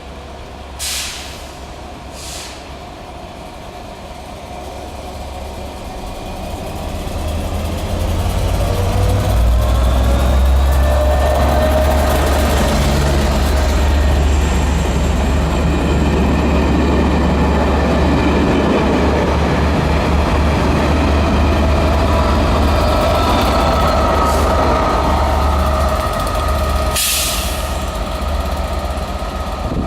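Short test train passing at speed, hauled by a British Rail Class 67 diesel locomotive with another on the rear; its EMD two-stroke V12 engine and the wheels on the rails build up over several seconds, stay loud for most of the passage with the engine note bending in pitch, then ease off near the end. Brief high hisses sound near the start and near the end.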